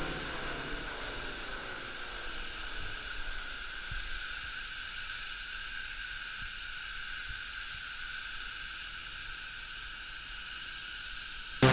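Faint steady mechanical hum, with a few soft knocks along the way; loud electronic music cuts in at the very end.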